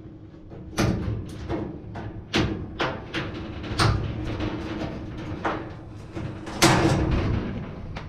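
Irregular knocks and clunks of dryer parts being handled and taken apart, about eight of them, the loudest near the end, with music playing in the background.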